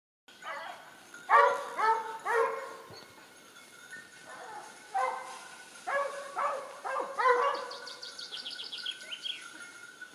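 A dog barking: short barks in two bursts a few seconds apart.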